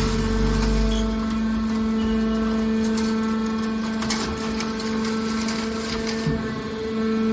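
Horizontal hydraulic metal baler running: a steady hum from its hydraulic pump and motor, with a heavy low rumble that fades about a second in and a few faint knocks.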